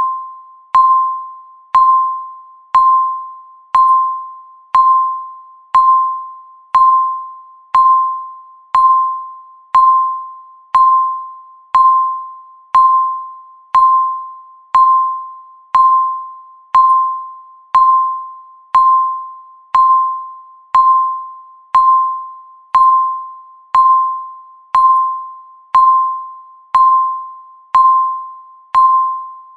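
Countdown timer beeping once every second: each beep a single electronic tone that starts sharply and fades away before the next one.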